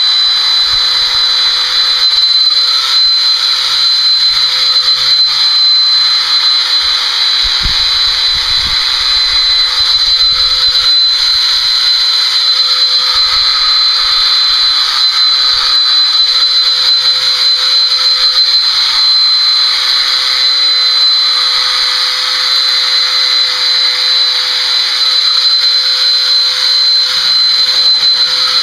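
Electric horse body clippers running steadily as they shear a pony's coat: a constant high whine over a buzzing hiss, with a couple of soft knocks about eight seconds in.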